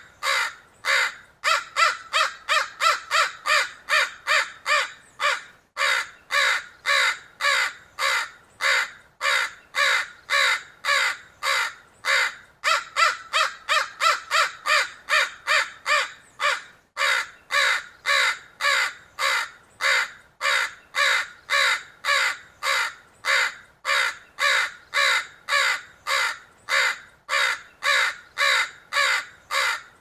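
Crow cawing over and over: a long, rapid string of short, harsh caws, about two to three a second, broken by a few brief pauses.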